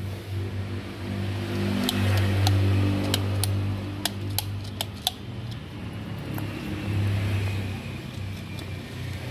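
A low, engine-like drone that swells about two seconds in and again near the end, with sharp metallic clicks scattered through it as a car's outer CV joint is scrubbed clean and turned by hand.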